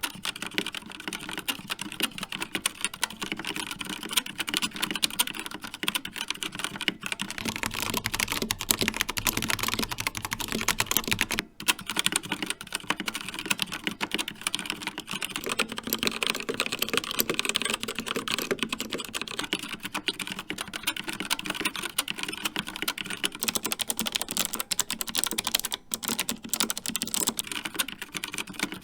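Continuous typing on mechanical keyboards, a dense run of key clacks. It starts on a Rapture Delta with Kailh Red linear switches, changes about seven seconds in to a Corsair K70 Pro Mini Wireless with Cherry MX Red switches, then about fifteen seconds in to a CZC Dwarf with Kailh Red switches, and about 23 seconds in to an MSI Vigor GK50 with Kailh White switches.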